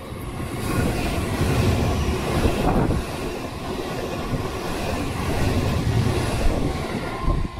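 Thameslink Class 700 electric multiple unit passing close by, a loud steady rush of wheels on rail that builds over the first second and then holds.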